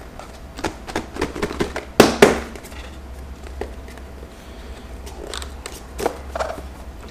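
A tight-fitting packaging box being worked open by hand: scattered clicks, scrapes and rustling, with two sharp knocks about two seconds in.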